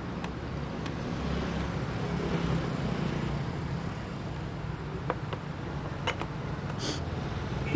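Steady low background rumble. Five to seven seconds in come a few light knocks and clinks as a glass water jug and dishes are set down on a wooden coffee table.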